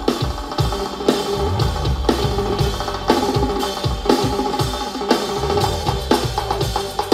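Loud break-dance music with a drum-kit beat and heavy bass, its strongest drum hits landing about once a second.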